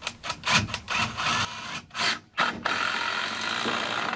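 Power drill working a screw into a wooden frame board: a string of irregular clicks and knocks, then a steady run of the drill for about a second and a half that cuts off suddenly.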